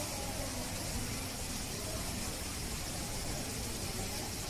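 Steady background hiss with a low hum underneath, even throughout, with no distinct events.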